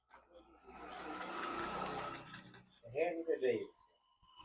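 A brush scrubbing quickly over a laptop motherboard: a rapid run of scratchy strokes lasting about two seconds, then a brief voice near the end.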